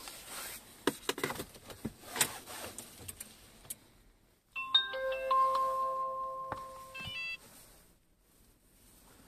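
A few clicks and knocks, then about halfway through the Renault Grand Scenic 3's dashboard plays its short multi-note electronic welcome chime as the ignition is switched on, with the diesel engine not yet started.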